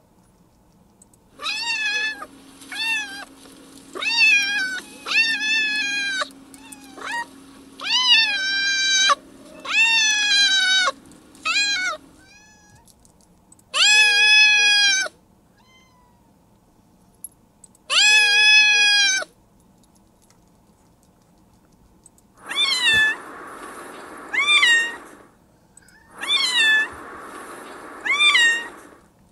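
A domestic cat meowing over and over, about fifteen meows that rise and then fall in pitch, some short and some drawn out, with gaps of several seconds between groups. The last four, in two pairs near the end, are rougher and breathier.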